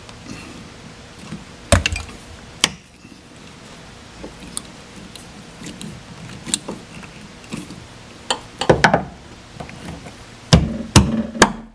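Irregular sharp metal-and-plastic clicks and knocks as a trunk lift strut is handled with pliers and its end fitting worked onto the mount. A couple of clicks come about two seconds in, then clusters of several near the end.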